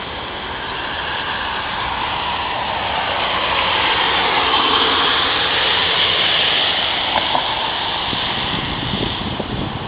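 A vehicle passing on a wet road: a rush of tyre noise that swells for about five seconds, peaks in the middle and then fades.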